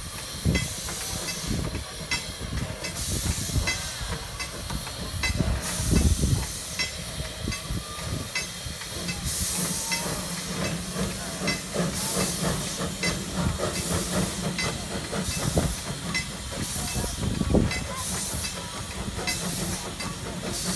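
J. Neils Lumber Co. Shay #5 geared steam locomotive moving slowly with a coach train: repeated bursts of steam hissing over a steady low rumble.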